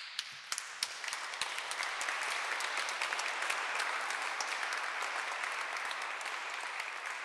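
Concert audience applauding. A few sharp single claps break out first, then within about a second it fills into dense, steady applause that slowly eases off near the end.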